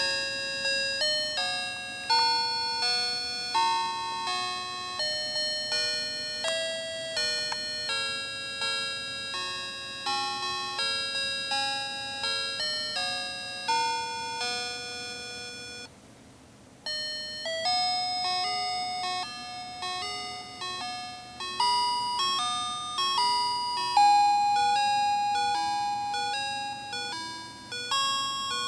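Fisher-Price crib toy playing an electronic chiming melody, one bell-like note at a time. About halfway through the tune stops for a second, and another tune with longer held notes begins.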